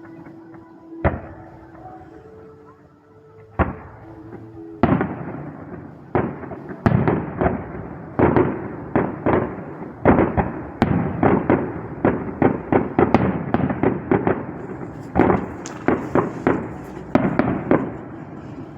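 Fireworks display going off: two single bangs in the first few seconds, then from about five seconds in a rapid barrage of bangs and crackles, several a second.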